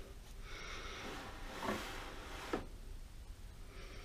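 Faint handling sounds of a metal lathe apron's rods and gears being worked by hand, with two light clicks in the middle.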